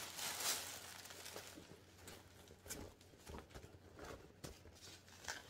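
Faint rustling and crinkling of handbag wrapping paper being unfolded by hand, with scattered light clicks and taps of handling.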